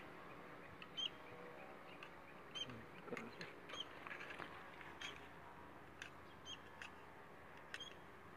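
Faint bird chirps, short high calls repeating every second or so, over low background noise with a few light clicks.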